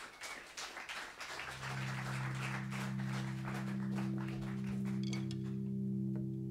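Audience applause that thins out, while a steady low drone of several held tones enters about a second and a half in and keeps sounding.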